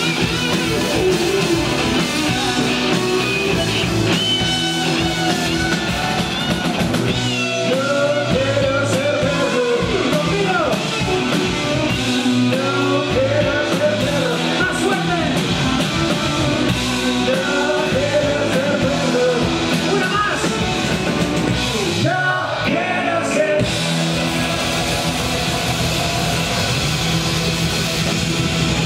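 Rock band playing live: electric guitars, bass guitar and drum kit, with a melody line that bends up and down in pitch through the middle and a short break in the low end about three quarters of the way through.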